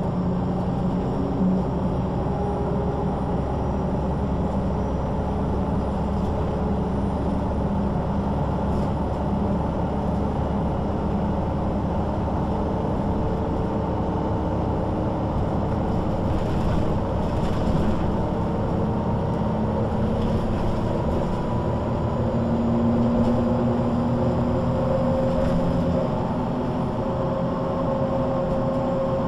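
MAN NG 313 articulated city bus with ZF automatic gearbox, heard from inside the passenger cabin while driving. The engine and running noise drone steadily, and the engine tones shift in pitch a few times as the speed changes.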